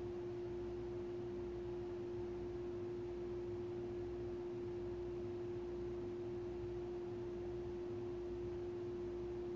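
A steady pure tone held at one unchanging mid pitch, with a faint low hum beneath it.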